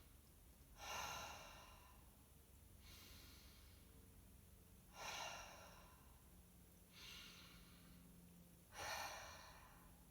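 A person breathing slowly and deeply, faint and close to the microphone: a breath about every two seconds, louder breaths alternating with softer ones.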